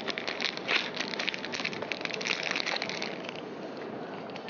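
Dry spaghetti and its packaging being handled: a rapid run of crackles and clicks that dies down a little after three seconds in.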